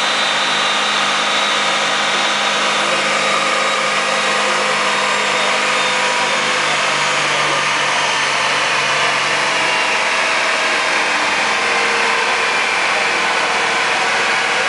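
Duramax 6.6-litre V8 turbodiesel pickup running hard on a chassis dyno: a loud, steady mechanical din with a high whine that slowly falls in pitch.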